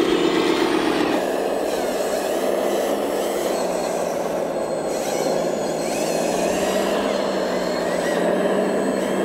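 Steady mechanical running of radio-controlled hydraulic construction models: an RC Volvo dumper for about the first second, then a Liebherr wheel loader model working in sand, with a different, even running sound.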